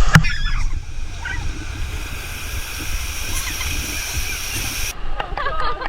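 Heavy rain pouring down in a steady hiss, cutting off suddenly about five seconds in, after which voices are heard.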